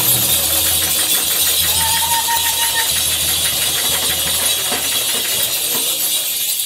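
Ensemble of djembe drums playing a fast, even rhythm, with a brief high held note about two seconds in.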